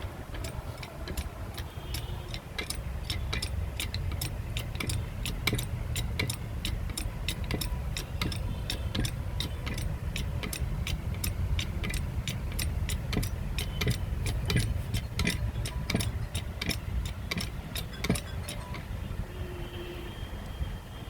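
Hand-pumped hydraulic crimping tool being worked to crimp a steel connector sleeve. Its mechanism gives a run of sharp metallic clicks, about two to three a second, over a steady low rumble.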